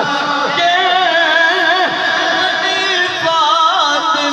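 Devotional naat singing: a voice holds long, wavering, ornamented melodic lines over a steady drone.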